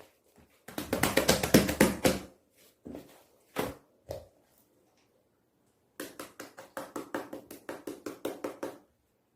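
Slime mixed with shaving foam being squeezed and poked by hand, giving runs of sticky clicking and popping air pockets: a dense crackly run about a second in, a few single pops, then an even run of about seven clicks a second.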